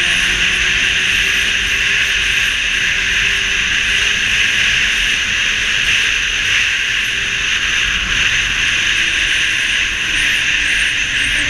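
Snowmobile running at a steady cruise, heard from on board: a constant hiss with a faint engine tone underneath that drifts slowly in pitch.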